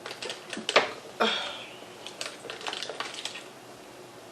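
Shells of large freshwater shrimp crackling and snapping as they are peeled by hand: an irregular run of sharp clicks, the loudest snap a little under a second in.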